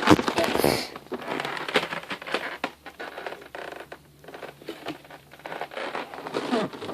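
Rustling, scuffing and knocking of a large cardboard box as it is picked up and handled, loudest in the first second, then scattered short scrapes and taps.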